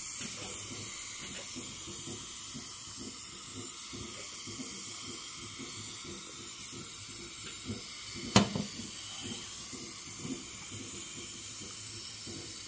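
Dental suction tip hissing steadily as it draws air and saliva from the patient's mouth, with one sharp click about eight seconds in.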